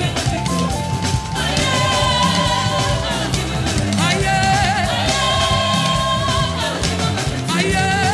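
Live gospel praise song: several singers on microphones over a backing band, with long held sung notes that waver in pitch.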